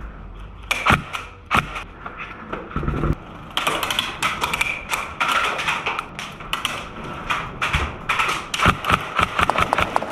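Airsoft gunfire: two sharp single shots about a second in, then from about three and a half seconds a long run of rapid shots and BB impacts, with more loud sharp cracks near the end.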